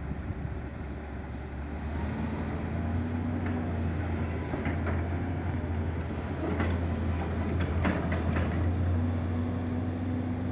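Diesel engines of heavy earthmoving machinery heard working across the site: a steady low drone that grows louder about two seconds in. Several short metallic clanks come through in the middle.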